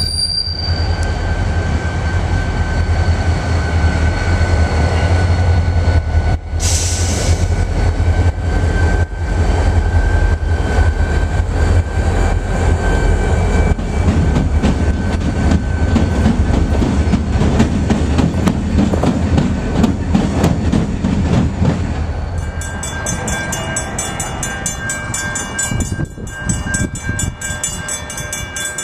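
Pair of IHB EMD GP40-2 diesel locomotives passing close by, their turbocharged 16-cylinder engines running with a loud steady low rumble under a thin steady high tone. About two-thirds of the way through the rumble gives way to a quieter, more distant rail sound with steady tones.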